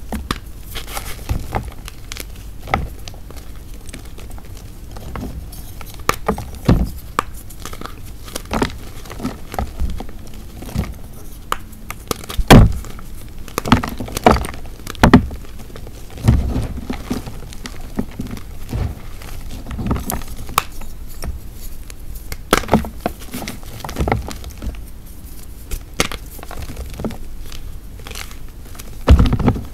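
Dried hearts of Ader gym chalk, molded with water, being crushed and crumbled: irregular dry crunches and crackles with soft thuds, a cluster of louder crunches about halfway through and another near the end.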